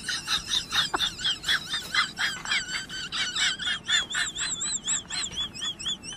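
High-pitched bird chirping: a fast run of short chirps, about four a second, giving way about two-thirds of the way through to warbling notes that rise and fall.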